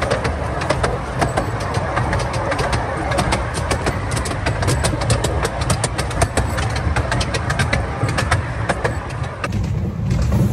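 Miniature railway train running, with a steady low rumble and frequent clicks of its wheels over the rail joints.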